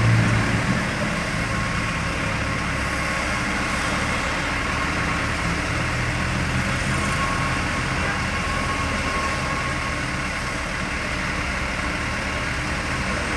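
Motor vehicle engine running steadily, with a strong low hum in about the first second that then eases to an even, unchanging sound.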